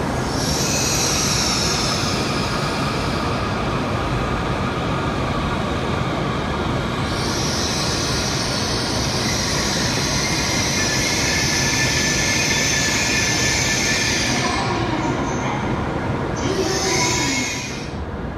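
An E7/W7 series Shinkansen train set moving past a station platform. It makes a steady loud rolling rumble, with a high hiss or squeal that comes in near the start and again for about eight seconds in the middle.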